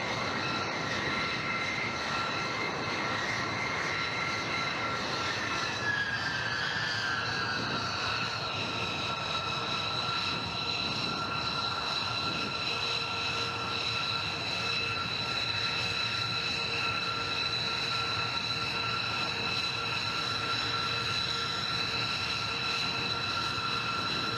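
Northrop Grumman B-2 Spirit bombers taxiing, their four General Electric F118 turbofans each giving a steady high whine over a rumble. About six seconds in, one whine falls in pitch and then settles.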